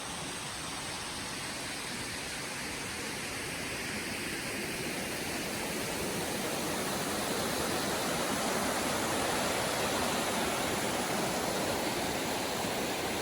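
Ocean surf breaking on the beach: a steady rushing roar that slowly builds.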